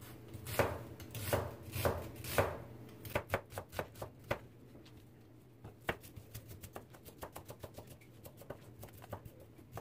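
Kitchen knife cutting a red onion on a thin plastic cutting board. A few louder slicing strokes about two a second, a quicker run of cuts about three seconds in, then lighter, faster chopping taps.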